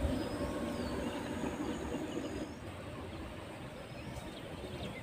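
Quiet rural outdoor background: a low rumble that eases off about halfway through, with a few faint, short, high bird chirps.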